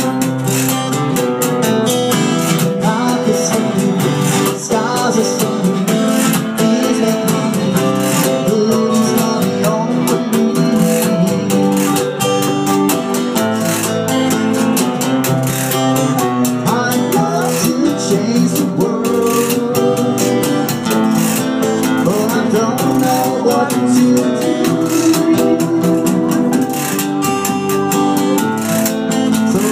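Live acoustic band playing: strummed acoustic guitars with a hand drum keeping the beat, and a harmonica playing over the chords with some bent notes.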